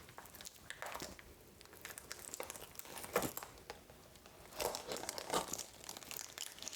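Soft plastic wrapping being crinkled and pulled off a new keyboard by hand: irregular crackles, louder in a couple of bursts around the middle.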